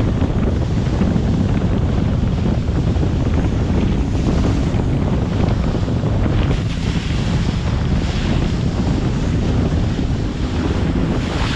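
Speedboat underway at sea: steady, heavy wind buffeting the microphone over rushing water and engine noise.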